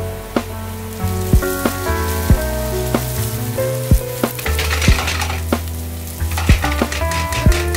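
Finely chopped onion sizzling in oil in a metal frying pan, stirred with a spatula, with stronger bursts of sizzling and scraping about halfway through and again near the end as the onion is turned over.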